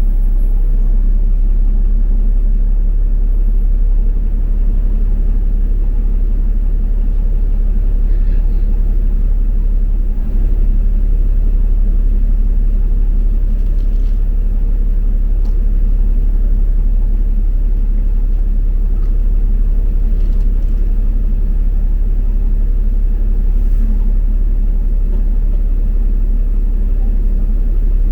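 Steady low rumble of a double-decker bus in motion, heard from on board, with a few faint clicks and rattles.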